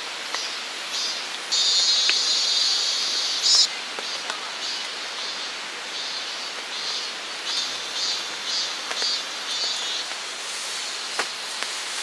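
Steady rushing of a valley stream, with a high-pitched insect buzz that holds for about two seconds near the start, then returns in short repeated pulses; a few faint clicks.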